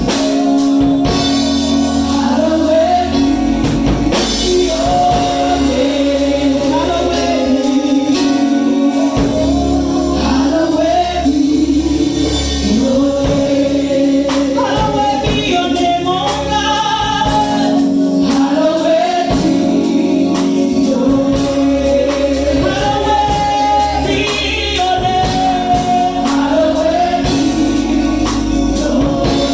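Gospel worship song: several voices singing a melody over a steady held keyboard chord, a changing bass line and a regular beat.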